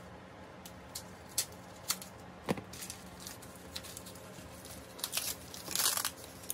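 Taped-up wrapping being cut and torn open by hand: scattered sharp snips and tears, then a louder burst of crinkling and rustling near the end as the wrapping comes away.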